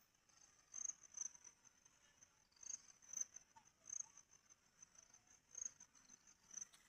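Faint insect chirping: a high, thin chirp repeating irregularly about once a second, over light rustling.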